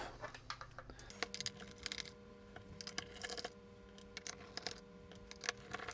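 Faint, irregular clicks and taps of a small plastic Geiger counter case being handled and turned over as its back is taken off.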